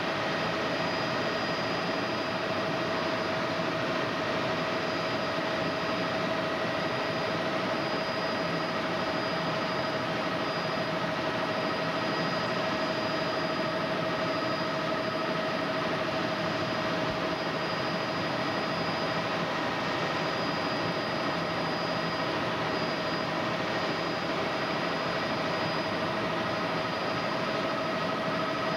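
Helicopter cabin noise: the engine and rotor running steadily in flight, a constant rush with a steady whine over it that does not change.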